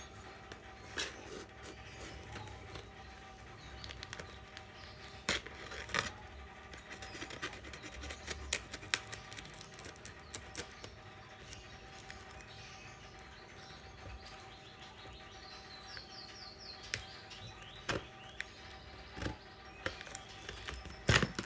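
Hands handling and opening a cardboard shipping box: scattered taps, knocks and scrapes on the cardboard, with a sharper cluster near the end. Faint bird chirps in the background about two-thirds of the way through.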